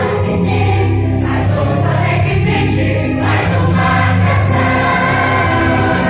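Choir singing a Christmas cantata, with sustained notes over a steady instrumental accompaniment.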